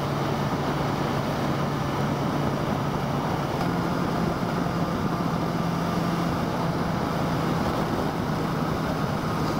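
BMW S1000XR inline-four engine running steadily while riding, its note stepping up slightly about three and a half seconds in, over a steady rush of wind and road noise.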